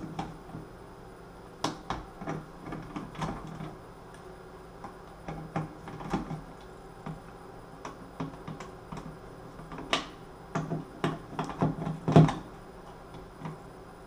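Irregular small clicks, taps and scrapes of a screwdriver working the screws of a plastic light-switch wall plate, with a few sharper knocks, the loudest near the end.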